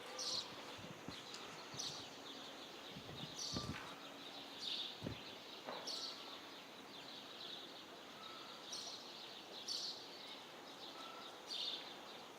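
Faint outdoor ambience with short, high bird chirps recurring every second or two, and a couple of soft low thuds in the middle.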